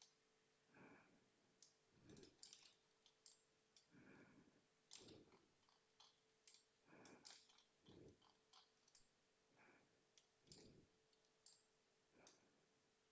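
Faint computer mouse clicks and handling at a desk, scattered irregularly, with soft short rustles in between; otherwise near silence.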